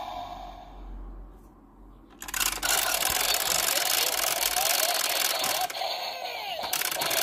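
Electronic sound effects from a Super Sentai Geardalinger gear-wheel blaster toy through its small speaker: a fading sound, then about two seconds in a loud, dense buzzing effect full of rapid clicks that runs on.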